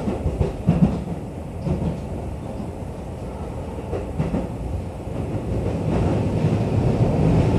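Keio 9000 series commuter train running, heard from inside the passenger car: a steady low rumble of wheels on rail, with a few short rail clicks in the first second and again around four seconds in, growing louder near the end.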